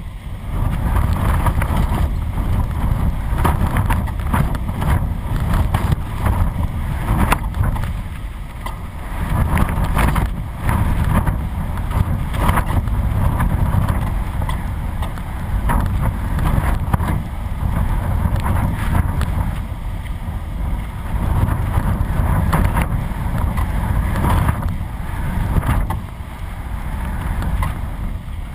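Strong gusty wind buffeting a camera riding on a flying kite, a loud low rushing and rumbling that swells and eases with the gusts, with many quick flutters through it.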